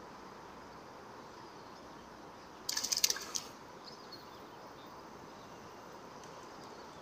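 A hooked fish thrashing at the water's surface as a long fishing pole lifts it: a brief burst of rapid splashing and clicking about three seconds in, over steady river and outdoor background noise.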